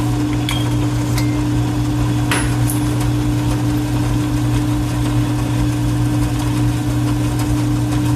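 Metal lathe running at a steady speed, its electric motor giving a constant hum, with a few light metallic clicks in the first three seconds.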